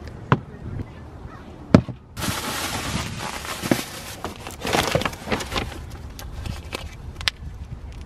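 Plastic produce bags and paper grocery bags rustling and crinkling as groceries are unpacked, with several sharp knocks of items set down on a wooden surface, the loudest a little under two seconds in.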